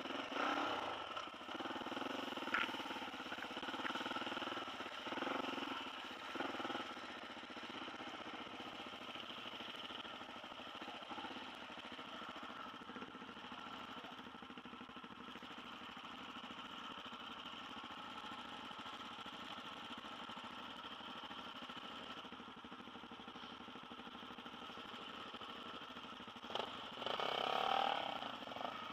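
Dirt bike engine running at low revs, mostly steady, with a few louder throttle swells in the first several seconds and again near the end.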